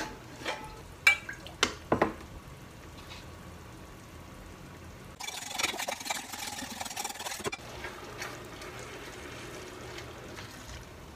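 A few sharp knocks of a utensil against a cast-iron skillet as vegetables are stirred. Then about two seconds of a wire whisk beating egg whites in a glass bowl, over a faint sizzle from the pan.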